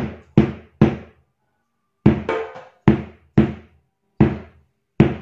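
Hadroh bass drum (bas tawon) being struck in a rhythm: about eight short, deep thuds with a pause of about a second after the third. Its thick foam lining damps each stroke.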